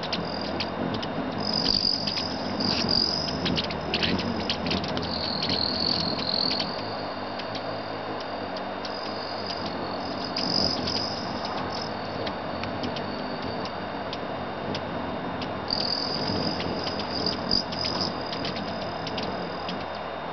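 Hummingbirds at a nectar feeder: high-pitched buzzy trills and quick ticking chips that come and go in bursts several times, over a steady background hum.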